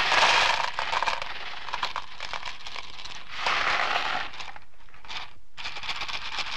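Crinkling, crackling noise coming in several bursts: one at the start, a second a little past the middle, and more near the end.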